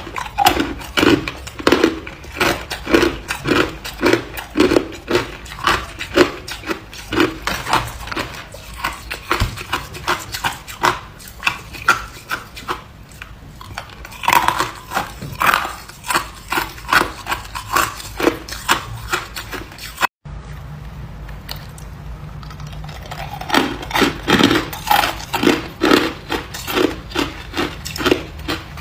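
Ice being chewed close to the microphone: a run of hard crunches, about two a second, with a momentary break about two-thirds of the way through.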